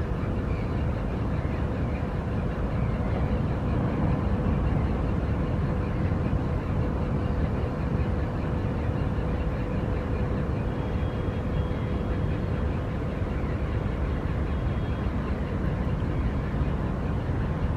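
Steady low rumbling noise with a faint constant hum running through it and no distinct events.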